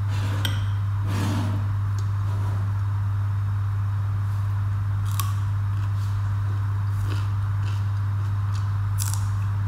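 A steady low hum, with faint clicks of fingers and cucumber pieces against a plate, and a crisp crunch of raw cucumber being bitten near the end.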